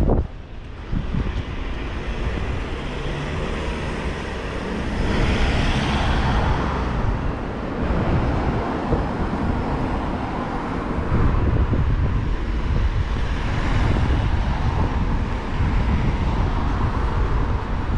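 Road traffic driving past close by, cars and a London black cab, with a steady low rumble and louder passes about five seconds in and again near thirteen seconds. Wind rumbles on the microphone underneath.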